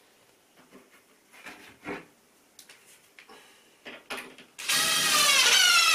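Cordless drill boring a small pilot hole into timber. A few light clicks and knocks of handling come first, then near the end the motor starts and runs under load, its whine falling in pitch as the bit bites into the wood.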